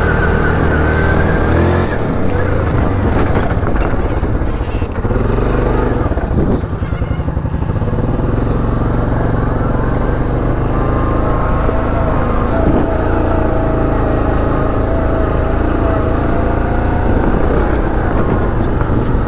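ATV engine running as the quad is ridden over a rocky dirt trail, its note rising and falling with the throttle and easing off briefly around six to seven seconds in.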